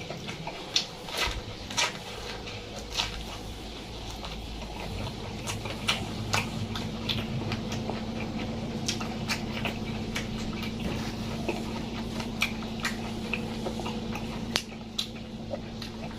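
A person chewing and eating food close to the microphone, with irregular crunchy, wet clicks. A steady low hum runs underneath, coming in about a second and a half in.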